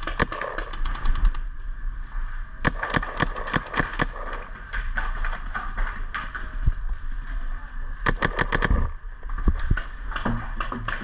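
Paintball markers firing in rapid strings of shots, several a second: one string near the start, a longer one about three seconds in lasting over a second, and a short one about eight seconds in.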